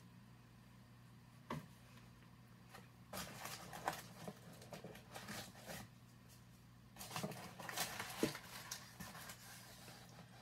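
Packaging being handled: rustling and small clicks of paper and plastic wrap in two spells, about three seconds in and again about seven seconds in, with a single click shortly before. A faint steady hum runs underneath.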